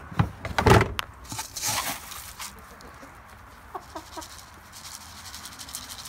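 Domestic hens clucking a few short times around the middle, after loud knocking and rustling in the first couple of seconds.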